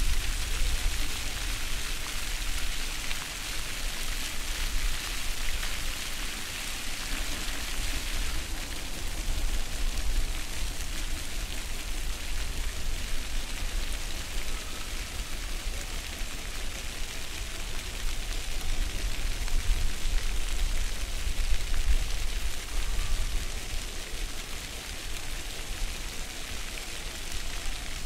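Floor fountain jets splashing: water shooting up and falling back onto wet stone paving, a steady hiss of falling water with a low rumble underneath.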